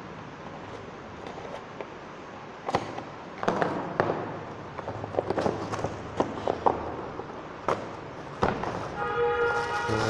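Cardboard product box being handled and opened: scattered taps, scrapes and rustles of cardboard and packaging, with a brief steady tone near the end.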